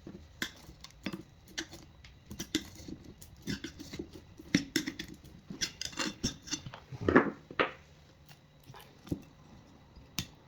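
Irregular clinks and knocks of hard parts as a salvaged supercapacitor module is pried apart, its two end covers being separated. The loudest knock comes about seven seconds in.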